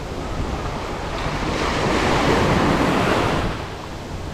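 Small sea waves breaking and washing up the beach close by, swelling to their loudest about two seconds in and easing near the end, with wind buffeting the microphone.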